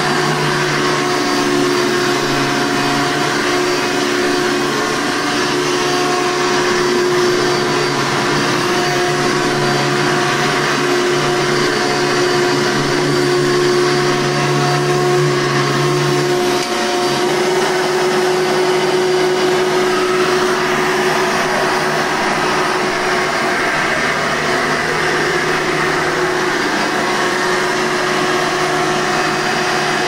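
Red Hoover Encore Supreme upright vacuum cleaner running steadily while pushed over carpet, a continuous motor hum. Its tone changes a little about halfway through.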